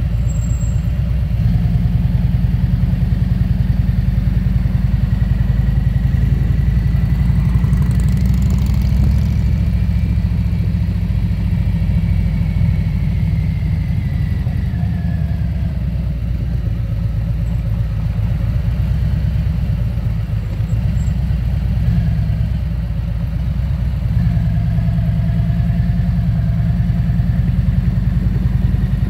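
Touring motorcycle's engine running at low road speed with a steady low drone, easing off about halfway through and pulling again a few seconds before the end.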